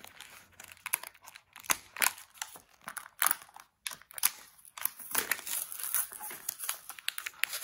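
Plastic blister pack on a cardboard backing card being picked at and pulled apart by hand: irregular crinkling and sharp crackling snaps of plastic and card, busiest a little past the middle.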